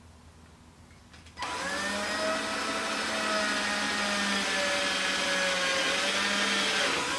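Electric drill boring the second mounting hole through the Tour-pak wall: the motor starts about a second and a half in and runs as a steady whine, its pitch dipping slightly under load.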